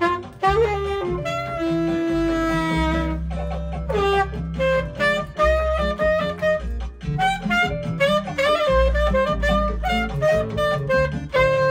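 Alto saxophone playing a jazz melody, with a long held note near the start and then shorter phrased notes, over a backing track with a steady bass line.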